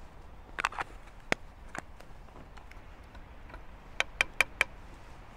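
A spoon knocking against a non-stick camping pan while stirring curry: a few scattered sharp clicks, then four quick knocks about four seconds in.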